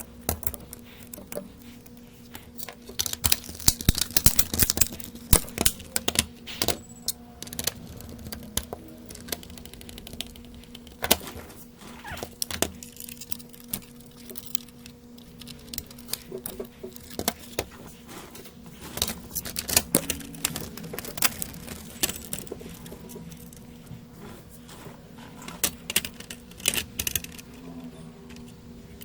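Irregular clicks, taps and clinks of small metal tools and parts being handled during a bench repair of a PS5 power supply, in clusters of quick strikes, over a steady electrical hum.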